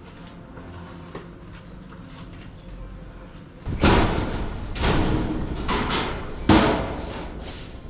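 Four loud bangs and scrapes of building work on the chook pen, starting about halfway through, over quiet background music.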